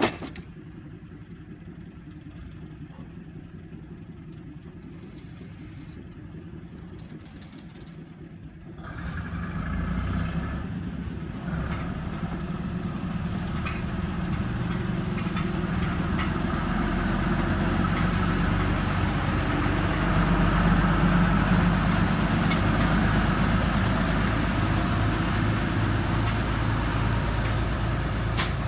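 The diesel engine of a WWII War Department shunting locomotive (WD 70033 / NS 162), faint and idling at first after a sharp click at the start. About nine seconds in it opens up and gets much louder as the locomotive pulls away and passes, then keeps running steadily under power.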